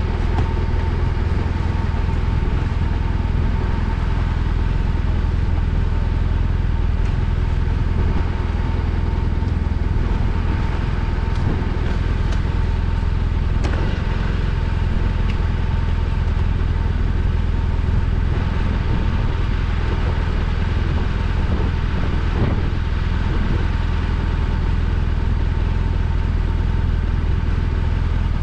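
BMW R1200RT motorcycle's flat-twin engine running steadily, with no change in pitch.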